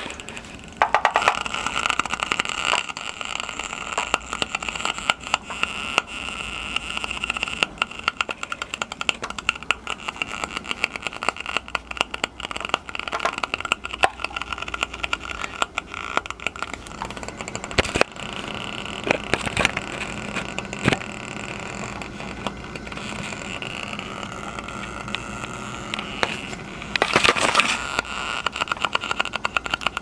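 Battery-operated smoke puffer's small fan whirring steadily as it puffs smoke at a gas water heater's draft hood for a draft test. Scattered clicks and knocks from handling, with a louder patch near the end.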